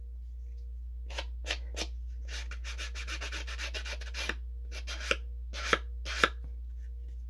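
A file rubbing along the cut edges of a paper card to smooth them. There are a few separate strokes, then a quick run of short back-and-forth strokes, then a few sharper, louder strokes near the end.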